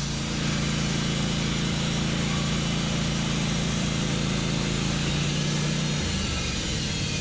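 Wood-Mizer LT15 Wide portable band sawmill running under load, its engine holding a steady note while the band blade cuts through a white pine log with a constant hiss. The engine note changes about six seconds in.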